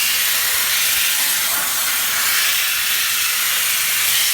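A loud, steady hiss that does not change.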